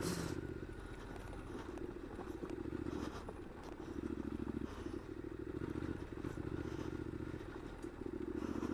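2015 Triumph Scrambler's 865 cc air-cooled parallel-twin engine running at low revs on a rough dirt lane, the throttle going on and off every second or so, with light clatter from the bike over the ground.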